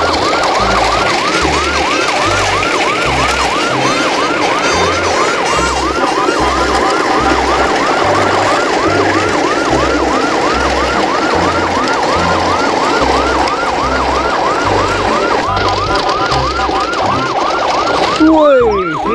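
Fast yelping electronic siren, about three quick rising-and-falling sweeps a second, over a steady low beat. The siren stops near the end.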